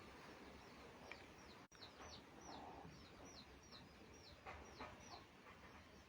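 Faint bird chirping over a low hiss: a steady run of short, high, falling chirps, about two to three a second.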